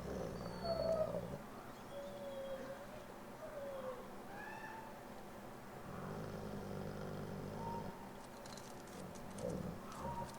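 Captive wolves whining and whimpering: a string of short, thin, high calls that slide up and down and overlap, the loudest about a second in.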